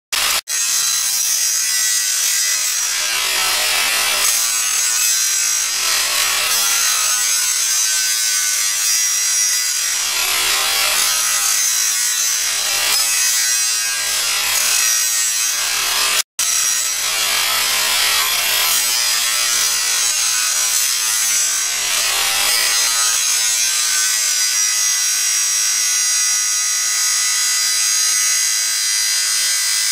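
Handheld angle grinder running at full speed and grinding a steel pipe, a steady whining grind that wavers as the disc bites the metal. It breaks off for a moment about halfway through.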